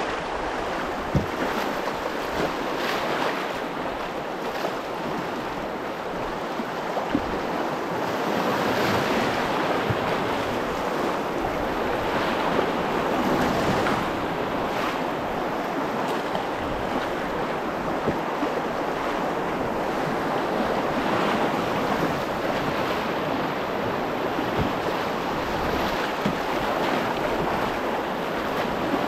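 Rough, fast river water rushing and splashing around an open canoe running a grade-one rapid, with paddle strokes in the water and wind buffeting the microphone. A few sharp knocks stand out.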